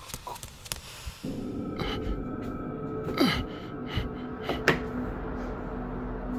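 Dark ambient horror-film score: a steady droning chord of held tones comes in about a second in. Two falling whooshes sweep down over it midway.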